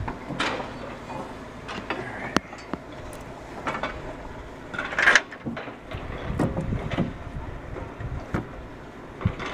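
Scattered knocks and clatter of hands-on repair work as a bearing is fitted to the chipper's flail-drum shaft, with one louder hit about five seconds in.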